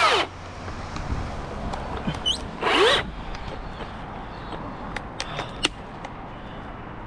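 A battery chainsaw's motor runs and cuts off just after the start, then gives one short rising rev about three seconds in. A few sharp clicks follow about five seconds in.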